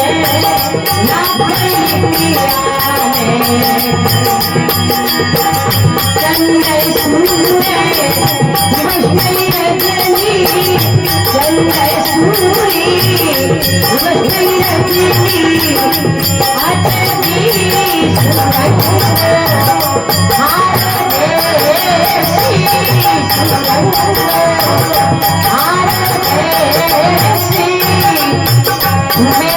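Rajasthani devotional folk music (bhajan): a sung melody over a fast, steady jingling rhythm of small percussion.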